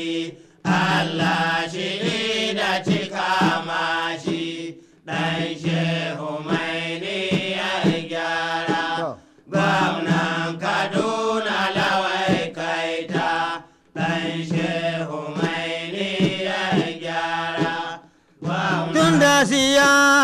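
Hausa praise song: a voice chanting long, melismatic sung phrases of about four seconds each, with brief breaks between them. Near the end it gives way to a fuller, louder musical section.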